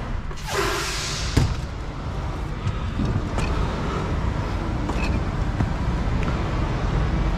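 Volvo semi-truck driver's door clicking open and the driver climbing down the cab steps, over a steady low rumble; a short hiss at the very start.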